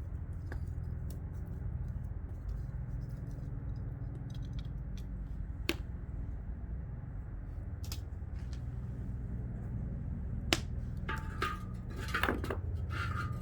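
Wood fire crackling, with scattered sharp pops over a steady low rumble. Near the end comes a short run of scraping, clinking sounds.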